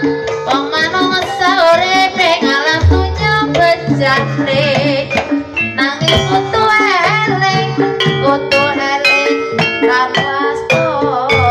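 Javanese ebeg accompaniment music: hand drums beat a busy pattern under held pitched instrument notes and a wavering melodic line.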